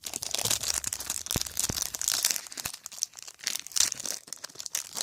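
Foil wrapper of a trading card pack crinkling and being torn open, a dense run of sharp crackles.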